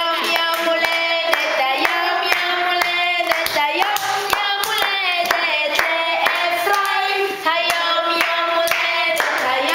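A group of children and adults singing a birthday song together, clapping along in time throughout.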